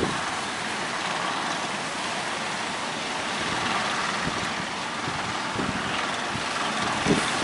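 Strong wind blowing over the microphone: a steady rushing noise with uneven low gusts.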